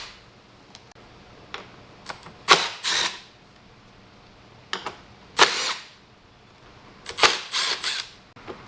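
A screwdriver backing out the small T7 Torx screws that hold the HVAC control panel, heard as a handful of short bursts of under a second each with quiet gaps between.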